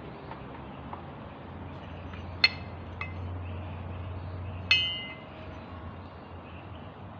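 Metal parts clinking while a washing machine drum is being assembled: two sharp clinks that ring briefly, about two and a half seconds in and again near five seconds, with a fainter one between them, over a low hum.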